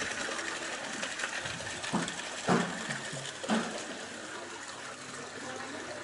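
Soybean washing machine discharging a steady rush of water and wet soybeans from its outlet chute into a plastic basin. Three short knocks stand out about two, two and a half and three and a half seconds in.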